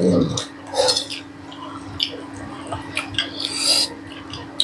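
Eating sounds: chewing with scattered short clicks and clinks of dishes, over a steady low hum.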